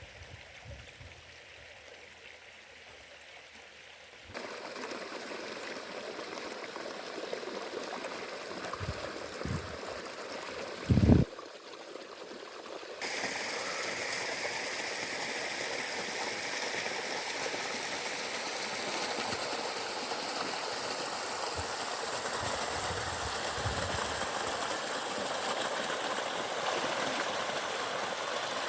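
Stream water running and trickling in a few cut-together shots; it gets louder in steps about 4 and 13 seconds in. There is one short, loud low thump about 11 seconds in.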